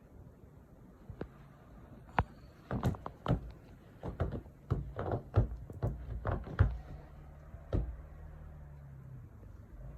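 A run of irregular knocks and thumps, a dozen or so, bunched in the middle, over a steady low hum.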